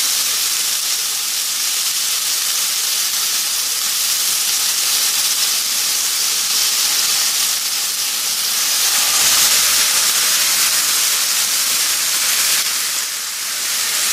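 Raw chicken breast sizzling in hot oil in a nonstick Teflon frying pan over high heat: a loud, steady hiss that dips briefly near the end.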